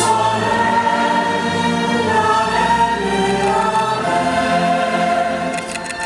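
Show music: a choir singing sustained chords over an orchestral backing, accompanying a slow ballroom dance number.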